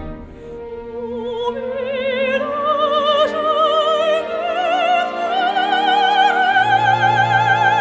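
Operatic singing over orchestral music: one voice with wide vibrato climbing in pitch and growing louder toward a long held high note, with a low bass note joining about two-thirds of the way in.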